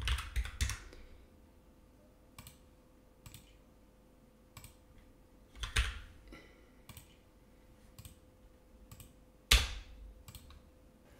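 Typing on a computer keyboard: scattered key clicks with pauses between them and a few harder strikes, the loudest near the end.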